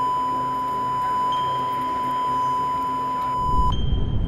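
A steady, single-pitched electronic beep tone held for about three and a half seconds, then cutting off. Near the end a low rumble of aircraft cockpit noise takes over.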